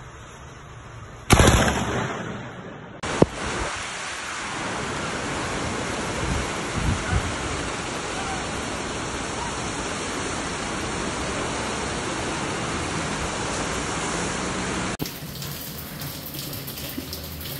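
Lightning strikes an overhead wire with one sudden, loud crack about a second in, which dies away over a second or so. Then heavy rain gives a steady hiss, and near the end water drips and pours through a leaking ceiling.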